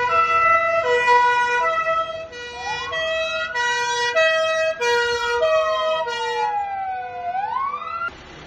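Police sirens: a two-tone hi-lo siren switching pitch about twice a second, overlaid from about 2.5 s in by a wailing siren that rises, falls slowly and rises again. Both stop abruptly near the end.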